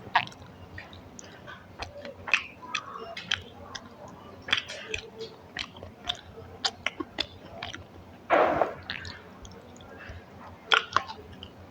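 Close-miked chewing and wet mouth clicks of a person eating rice and curry, with one brief louder rushing noise about eight seconds in.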